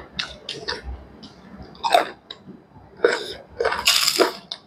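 Close-miked eating sounds: chewing and crunching of fried food with wet mouth smacks, in short irregular bursts, densest and loudest about three to four seconds in.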